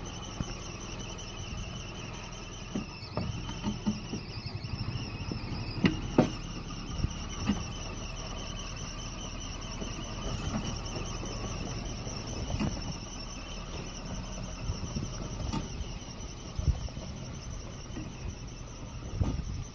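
Off-road SUV's engine running low as it crawls down a steep, rutted mud track, with occasional sharp knocks and thuds from the wheels and suspension. A steady high insect drone runs underneath.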